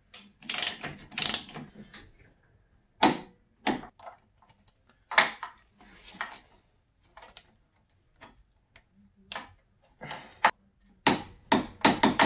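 Irregular metallic clicks and clinks of hand tools on the snowmobile's chaincase as a socket and torque wrench are worked onto the sprocket nuts, a few at a time with gaps between, coming thicker near the end.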